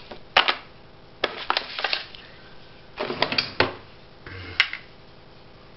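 A hand rummaging through a bathroom drawer: plastic packets crinkling and small items clicking and knocking together, in a few short bursts with pauses between, the sharpest click near the end.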